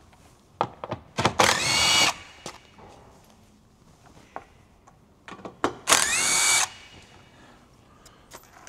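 Cordless power tool undoing the 10 mm bolts that hold an under tray: two short runs, each under a second, the motor whine rising as it spins up. Small clicks and knocks come just before each run.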